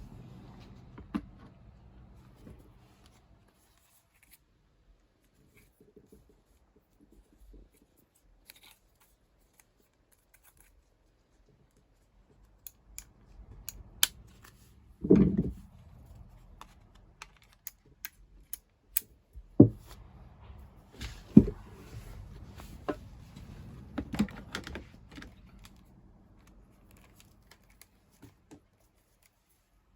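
Scattered sharp clicks and knocks of hand work in a small room, with a heavier thud about fifteen seconds in; most of the sound falls in the second half.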